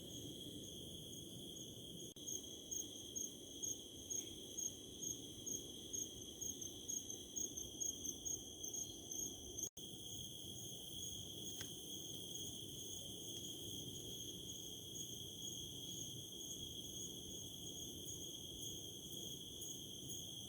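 Crickets trilling in a steady high chorus, with a closer one chirping in regular pulses about twice a second for several seconds near the start. The sound cuts out for an instant about ten seconds in.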